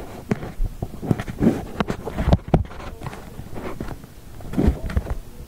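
Irregular clicks, knocks and a few dull thuds of hands handling and moving things about, with no steady machine sound.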